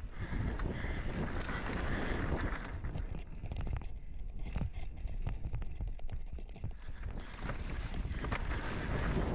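Mountain bike descending a rough dirt and rock trail, heard from a camera on the rider's full-face helmet: wind buffets the microphone in a constant low rumble, the tyres hiss and crunch over dirt and stones, and frequent rattling clicks run throughout, from a Fox Proframe RS helmet that rattles badly. The hiss swells at the start and again from about seven seconds in.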